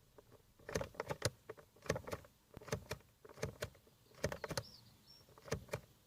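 Renault Clio Mk3 light/flasher stalk being pulled back and released over and over, giving a short cluster of plastic clicks about once a second. The owner says the switch doesn't flash the lights every time and takes it for a dirty switch.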